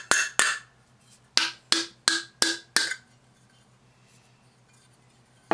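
About seven sharp hammer blows on the metal centerpiece of a hot air popcorn popper over the first three seconds, each with a short metallic ring, as the part is knocked loose and bent. The part bends easily, a sign that it is aluminum rather than stainless.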